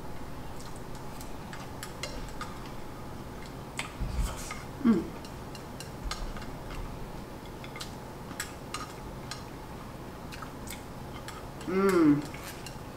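Wooden chopsticks clicking lightly and irregularly against a small ceramic plate during eating. A brief hummed "mm" comes about five seconds in, and a louder, longer "mmm" near the end.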